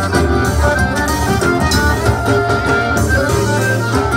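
Live forró pé-de-serra band playing an instrumental passage: accordion lead over electric guitar, bass and drum kit, at a steady dance beat.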